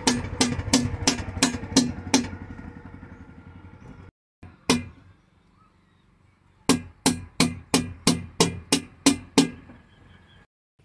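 Screwdriver hammered into a metal engine-oil pail lid to punch an air-vent hole opposite the spout, so the oil will pour easily: a run of about seven sharp, ringing strikes at roughly three a second, a single strike about halfway, then about nine more strikes near the end.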